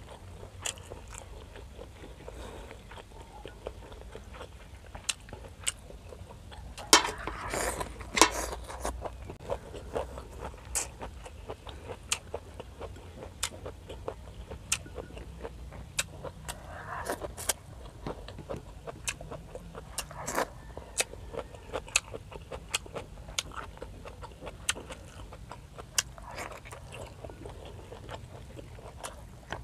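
Close-miked chewing and biting of grilled squid and seaweed: sharp wet mouth clicks and smacks several times a second, with a louder, denser stretch of chewing about seven to eight and a half seconds in.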